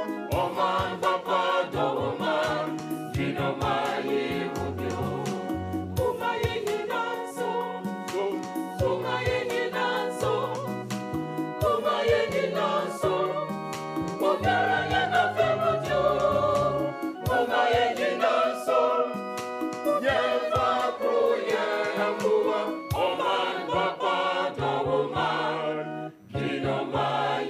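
Background music: a choir singing over a moving bass line and a steady beat, with a brief break near the end.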